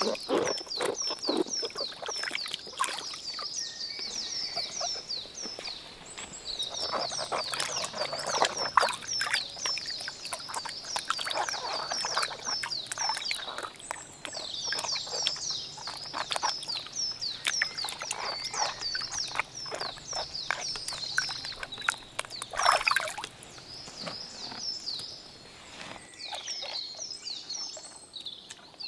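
Water splashing and sloshing as hands rub eggplants and tomatoes clean in a plastic tub of water, with birds chirping steadily in the background. The splashing thins out near the end, leaving the birdsong.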